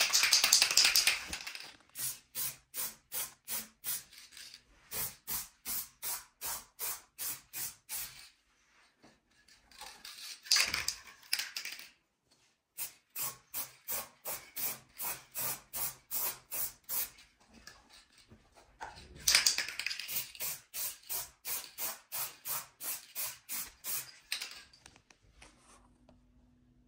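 Aerosol spray paint can spraying in three hissing bursts. Between the bursts the can is shaken, its mixing ball rattling in sharp clicks at about three a second.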